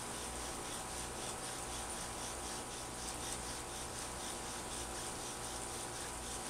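Bow drill in use: the spindle rubbing and squeaking in the hearth board's notch as the bow saws back and forth in a quick, even rhythm. Likely a cottonwood set, worked in the early warm-up strokes before pushing for an ember.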